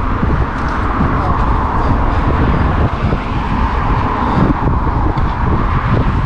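Steady rush of wind and road noise on the microphone of a camera riding on a moving bicycle, with car traffic on the road alongside.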